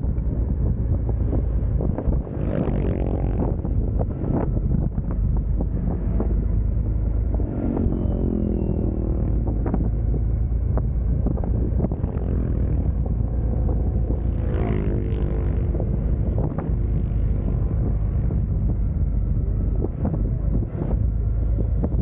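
Heavy wind buffeting on the microphone while riding a Yamaha XMAX 300 scooter, with the engine running underneath and its pitch swelling and falling a few times as the revs change.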